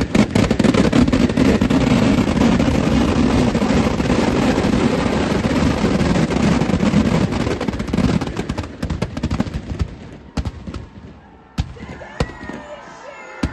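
Firecrackers inside a burning Ravana effigy going off in a dense, rapid barrage of bangs and crackles that thins out after about eight seconds to a few scattered single bangs.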